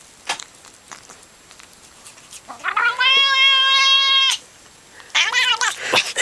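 Domestic cat meowing: one long, steady yowl lasting nearly two seconds from about two and a half seconds in, then after a pause a shorter, wavering call near the end.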